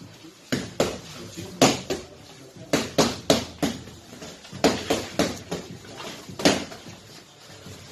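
Boxing gloves landing punches during sparring: about a dozen sharp slaps and thuds in quick bursts of two to four, with short gaps between the combinations.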